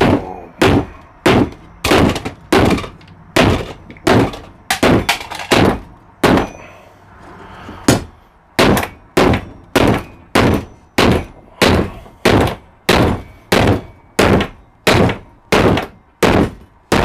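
Hammer blows on red-hot rebar over a small bench anvil, about two sharp ringing strikes a second, with a pause of about two seconds partway through. The anvil sits loose on the wooden workbench, so each blow also shakes the bench and what is on it.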